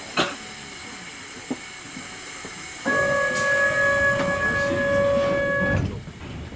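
A sharp click about a quarter of a second in, then a steady buzzer tone lasting about three seconds as the train's doors close at a subway station, ending sharply.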